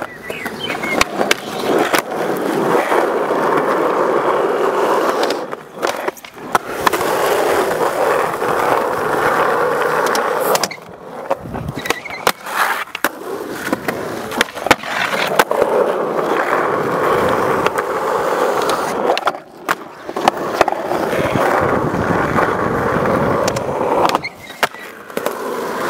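Skateboard wheels rolling on concrete in long steady stretches, broken every few seconds by sharp clacks of the board popping and landing and by the board sliding on a concrete ledge.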